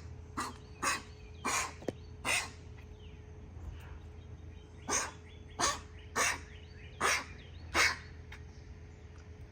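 A dog coughing in two bouts of short, harsh hacks: four in the first two and a half seconds, then after a pause five more, about one every 0.7 seconds.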